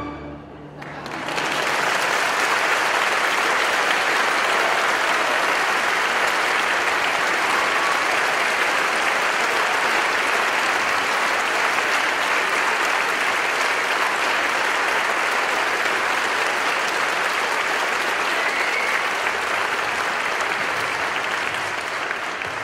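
Concert-hall audience applauding steadily after the orchestra's last note dies away, the clapping starting about a second in and thinning out near the end.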